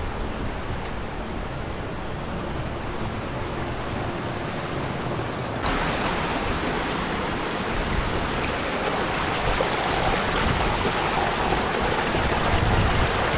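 Wind buffeting the microphone with a low rumble, then, after a sudden change about six seconds in, the steady rush of a small mountain stream running down over rocks.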